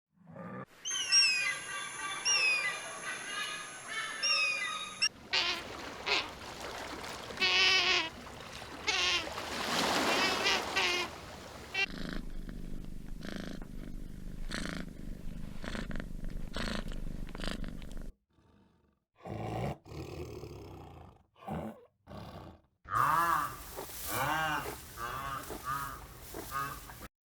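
A string of short animal recordings cut one after another, each holding a different animal's calls. The calls come with sudden cuts and brief silences between them.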